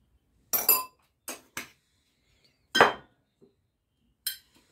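A metal spoon clinks and knocks against a glass blender jug as spices are tapped off into it: about five short, separate clinks, some with a brief ring.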